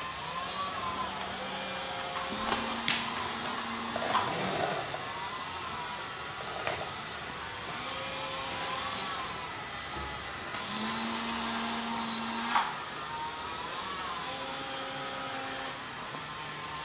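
Small electric drive motors of moving kinetic sculptures whirring steadily, their whine stepping and bending up and down in pitch as they change speed, with a few sharp clicks or knocks.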